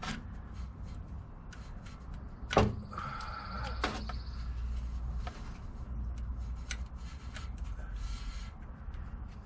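Scattered clicks and small knocks of hand tools working at a transmission tailshaft, while the rubber sleeve around the rear output seal is being cut away. One louder knock comes about two and a half seconds in, and a faint squeal lasts about a second just after it.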